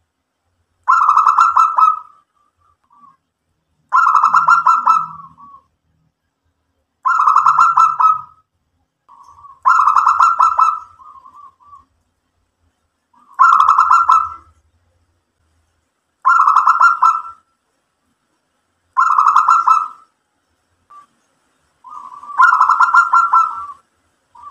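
Local Indonesian zebra dove (perkutut) cooing: a fast, stuttering coo phrase about every three seconds, eight phrases in all, with faint short notes between some of them.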